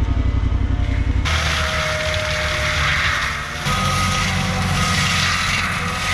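Heavy machinery engine running loud and steady, with a pulsing low engine note at first that changes abruptly to a noisier, hissing mechanical sound about a second in.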